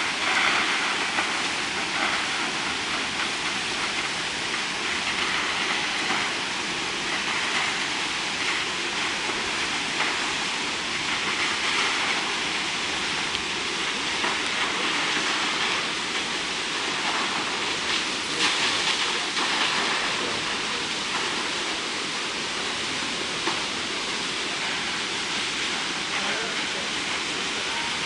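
Vernal Fall's water rushing steadily down the granite cliff into its plunge pool, an even hiss that swells a little about two thirds of the way through.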